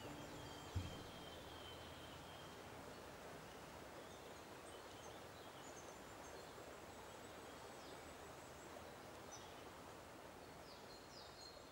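Faint outdoor ambience with scattered short, high bird chirps, and a single low thump about a second in.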